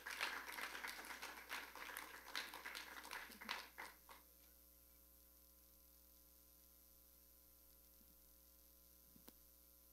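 Light audience applause that dies away about four seconds in, leaving near silence with a steady electrical hum from the sound system.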